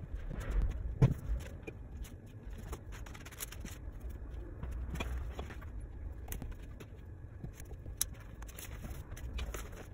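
Tools, a plastic ruler and plastic sheeting being handled on a wooden table beside a rolled clay slab: scattered light knocks, clicks and scrapes, with one louder knock about a second in, over a steady low rumble.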